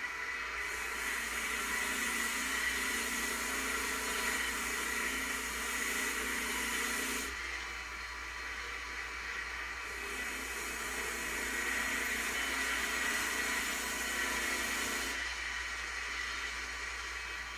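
Small electric rotary tool running at a steady high whine while it cleans rust off gun metal. Twice it is pressed against the metal, adding a hissing scratch for several seconds each time.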